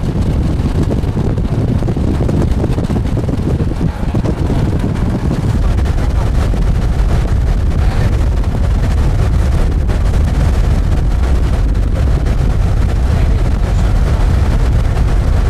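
Strong wind buffeting the microphone: a loud, steady low rumble that grows a little stronger about five seconds in.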